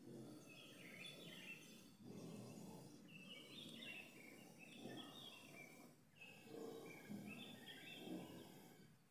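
Faint bird chirping in several short bouts of quick notes, over a low background rumble that breaks off briefly twice.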